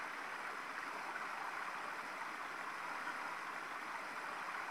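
Steady sound of flowing stream water, an even wash of noise with no breaks or rises.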